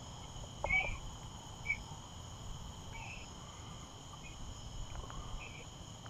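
A steady night chorus of crickets, several high even trills, with short chirps breaking in now and then and a small knock about a second in.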